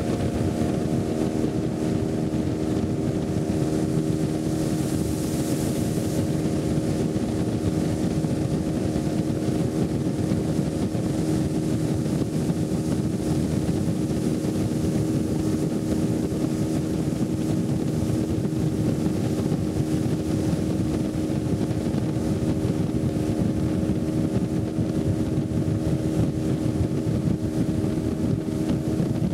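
Motorboat engine running steadily under way, a constant drone with an unchanging pitch.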